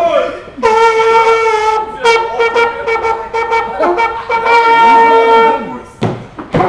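A trumpet playing long held notes, with a run of shorter notes between them, then breaking off shortly before the end.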